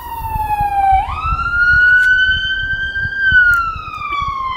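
A wailing siren, its pitch sliding slowly down, jumping back up about a second in, climbing, then falling again from about three seconds in. A low rumble runs underneath.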